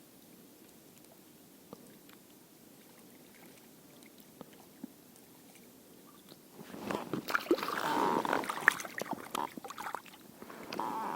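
Quiet ambience with a few faint ticks, then about six and a half seconds in, close sloshing and splashing of water mixed with clicks and knocks of handling.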